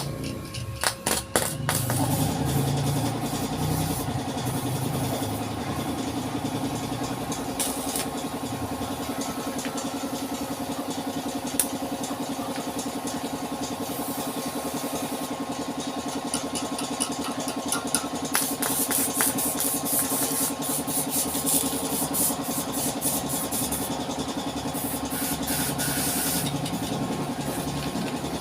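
Kia Avella's four-cylinder engine starting about two seconds in, after a few sharp clicks and knocks, then idling steadily through its newly fitted muffler. A fast, high ticking joins in for several seconds past the middle.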